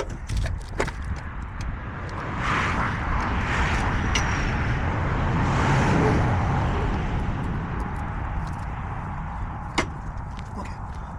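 A vehicle passing by, its noise swelling over a few seconds and then fading, over a steady low rumble, with a few sharp clicks.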